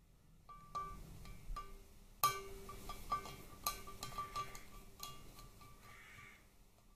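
A metal driver and Torx bit clicking and clinking against a Harley Twin Cam 88 oil-jet screw in the aluminium crankcase as the screw is undone. It is a run of sharp metallic ticks, each ringing briefly, with the loudest a little over two seconds in.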